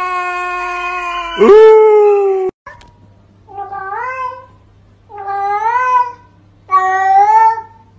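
Tabby cat yowling in long, drawn-out howls, a second one starting about a second and a half in, cut off abruptly. Then, over a steady low hum, a cat meows three times, each meow rising and falling in pitch, about a second apart.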